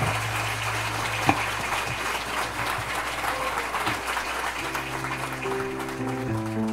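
Guests applauding over soft background music, with one sharper knock about a second in. Held piano notes come in about two-thirds of the way through.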